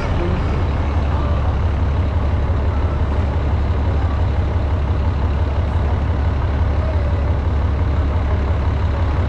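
Steady low rumble of a moving tour bus, with the even noise of downtown street traffic around it.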